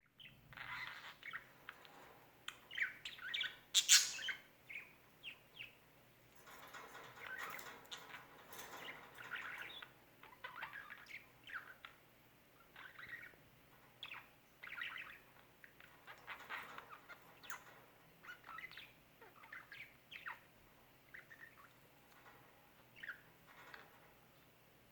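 Budgerigars chirping and chattering in many short, quick calls, with a brief, louder, sharp sound about four seconds in.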